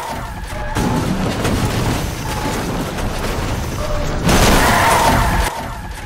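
Film sound effects in a horror movie's soundtrack: a loud, rumbling noise with a louder boom about four seconds in that lasts about a second, like a violent crash.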